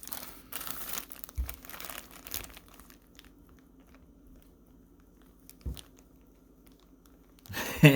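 Crinkling and rustling handling noise for the first few seconds, with a soft knock about one and a half seconds in and another about five and a half seconds in, then quiet room sound.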